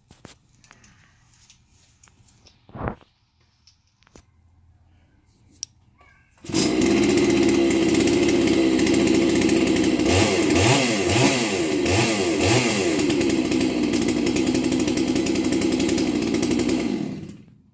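Chainsaw of an Alaskan sawmill setup starting up about six seconds in and running loud and steady, revved up and down a few times, then shut off near the end. It is a test run to check that the saw works after being put back together.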